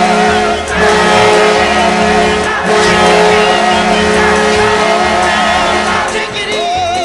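Minnesota Wild hockey goal horn sounding in long held blasts, with short breaks about a second and two and a half seconds in, over a goal song with singing. The horn stops about six seconds in and the song carries on.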